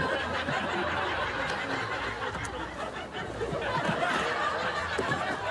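Audience laughing: many overlapping chuckles and snickers blending into a steady wash of laughter.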